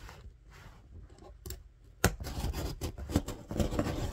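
A worn blade cutting open a package: quiet clicks at first, then from about halfway a run of scratchy, crackling cuts with sharp clicks.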